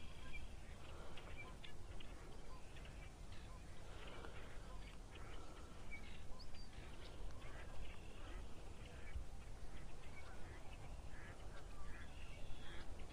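Ducks quacking repeatedly in short scattered calls, over a low steady rumble.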